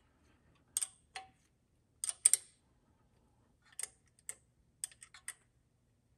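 Scattered sharp metallic clicks and taps of a small wrench on bolt heads and steel mounting brackets as the bolts holding a DRO scale's brackets are snugged up, some clicks in close pairs and a few with a short ring.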